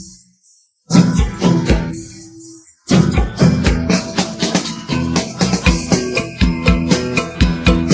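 Recorded music with a steady drum beat and strummed or plucked strings. It cuts out at the start, plays again for about two seconds while fading, stops, and resumes at full level about three seconds in.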